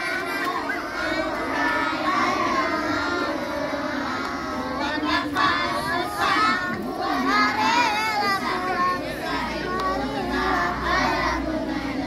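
A group of young children singing together, many voices overlapping in a loose, crowd-like chorus.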